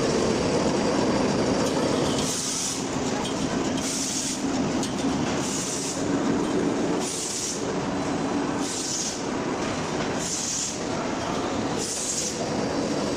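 XY-AI-399 automatic kitchen towel roll packaging machine running steadily, with a short hiss repeating about every second and a half.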